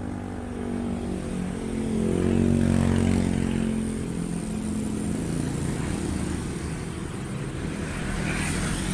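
An engine droning as it passes, its pitch sliding slowly down, loudest about two to three seconds in.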